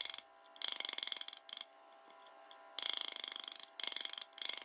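Chisel and mallet chopping waste out of a corner well in a solid walnut cutting board: several short bursts of fast, dense clicking with quiet gaps between them.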